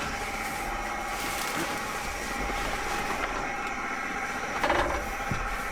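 A steady mechanical hum, with a short burst of rustling about three-quarters of the way through.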